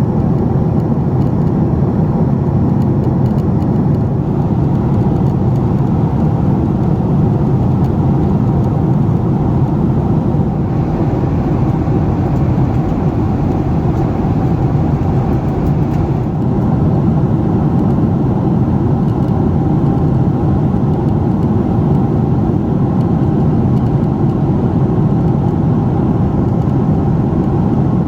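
Steady roar of engines and rushing air heard inside the cabin of a Boeing 767-400 airliner, mostly low-pitched, brightening slightly for a few seconds midway.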